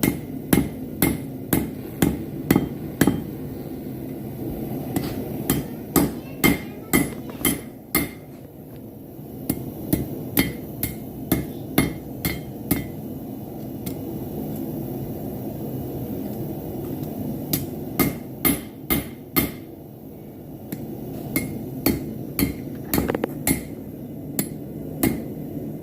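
A 5 lb hammer striking a hot railroad spike on a Harbor Freight anvil, forging it into a knife blade: sharp blows in runs of about two to three a second, with short pauses between runs. A steady low noise, likely the propane forge burner, runs underneath.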